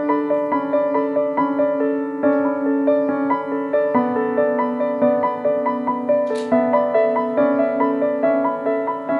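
Background piano music: a gentle melody of evenly paced, sustained notes.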